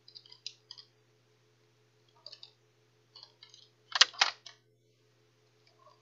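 Plastic clicks and taps from an Asus laptop's case as it is handled and taken apart, with two louder knocks close together about four seconds in.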